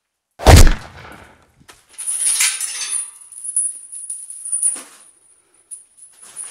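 A single loud bang about half a second in, followed by a few seconds of scattered knocks and scuffling over a steady high-pitched ringing tone.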